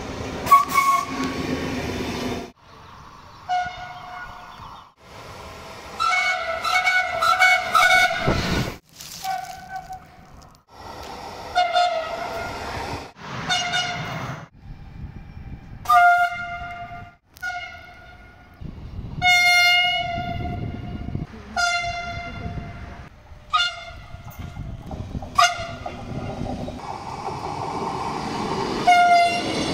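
A series of train horn blasts from several Italian regional trains, short toots and longer held notes one after another, with the rumble of the passing trains between them.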